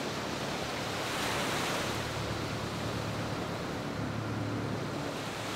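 Sea waves washing steadily on the shore, with a faint steady low hum underneath.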